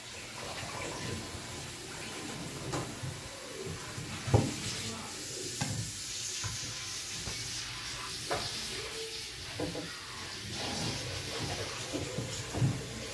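Hands handling a cake plate on a table: a steady hiss with light rustling, and a few short knocks as the plate is shifted and turned. The sharpest knock comes about four seconds in, and another comes near the end.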